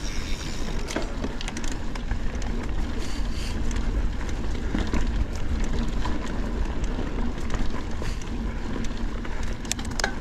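Mountain bike being ridden along a dirt singletrack trail: tyres rolling over dirt, with wind rumbling on the helmet camera's microphone and a few sharp clicks and rattles from the bike about a second in and near the end.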